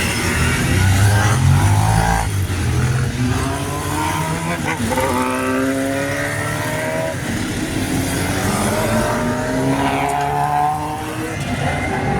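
Classic Honda racing motorcycles passing on track under hard acceleration, several engines rising in pitch one after another as they pull through the gears.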